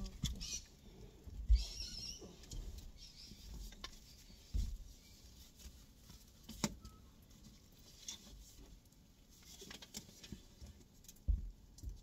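Scattered rustling and soft thumps and knocks as things are taken out of and set down in a car's back seat, the loudest bump about a second and a half in and another near the end.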